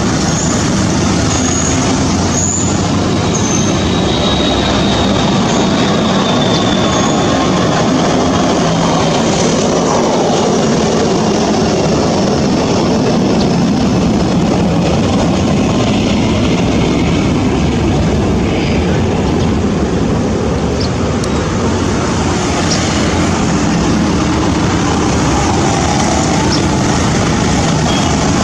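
Steady roar of a waterfall swollen by a flash flood, the floodwater pouring and rushing without a break.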